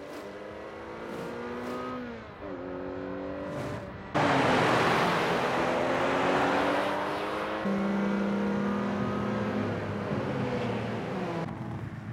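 Sports car engines, a Nissan Fairlady Z (S30) among them, running hard at speed, their pitch rising and falling with gear changes. About four seconds in, a loud rush of wind and road noise comes in suddenly on top of the engines and stays.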